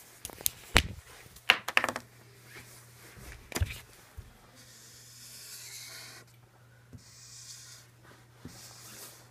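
Felt-tip marker scratching across paper in two longer strokes, about five and seven seconds in, over a faint steady hum. Before them come a few sharp clicks and knocks in the first two seconds and one more near the middle.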